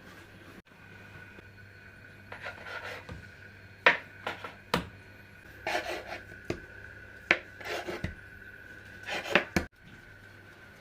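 Kitchen work on a wooden board: irregular scraping and rubbing strokes with a few sharp knocks, over a faint steady hum.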